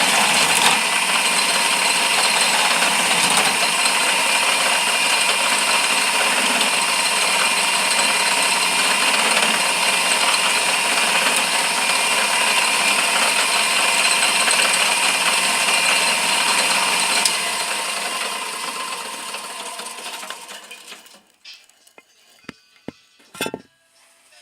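Lathe running with a newly made cutting tool taking a test cut, a loud steady rattling noise; about seventeen seconds in it fades away over a few seconds as the machine winds down, leaving a few sharp clicks near the end.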